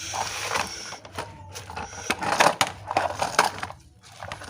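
Plastic toy trucks being handled and pushed along, rattling and scraping against sand and small stones, with irregular clacks and crunching.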